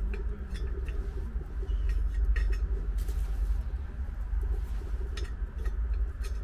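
Small twig fire crackling in the fire base of a Kelly Kettle chimney kettle, with scattered sharp crackles and clicks over a steady low rumble.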